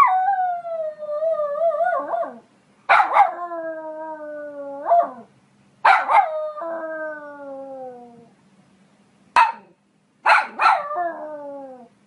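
Poodle howling: four drawn-out calls of about two seconds each, each starting with a sharp yelp and sliding down in pitch, with one short yip between the third and fourth.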